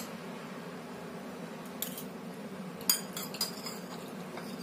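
A metal utensil clinking and scraping against a ceramic plate as it cuts through soft sago pearl pudding: a few light clinks, the sharpest about three seconds in, over a steady low hum.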